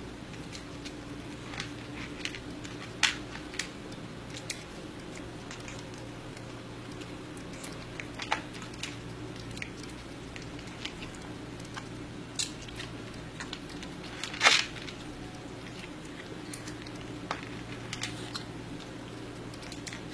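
Scattered crunching and clicking, with a few louder cracks and the loudest near the end, over a steady low hum.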